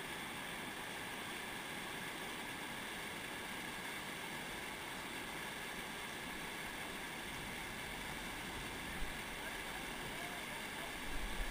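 Steady rush of river water pouring over a weir and through the white-water below it. A short bump about nine seconds in and a few low bumps near the end.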